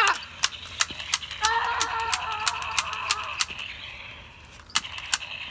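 A run of sharp clicks at irregular intervals, about a dozen, with a short pitched cry from a child about one and a half seconds in.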